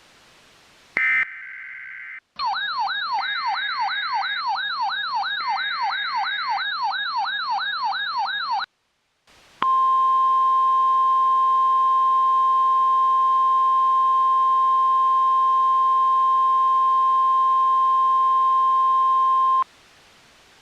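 Emergency alert tones. About a second in there is a brief buzzy data-like burst, then an electronic warble sweeps up and down about three times a second for about six seconds. After a short gap comes a steady 1050 Hz weather-radio alert tone, held for about ten seconds and cut off sharply.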